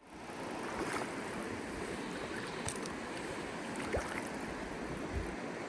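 Steady rushing of river current, an even hiss of flowing water, with a couple of faint clicks partway through.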